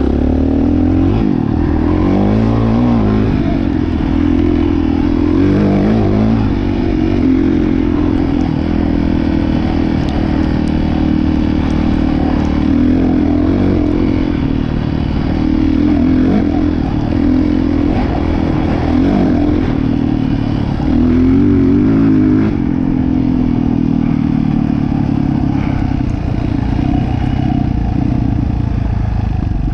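Dirt bike engine running under load on a trail ride, its pitch rising and falling again and again as the rider works the throttle and gears.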